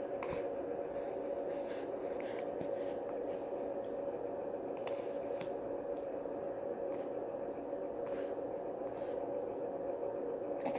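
A steady low hum with a few faint soft clicks and rustles scattered through it.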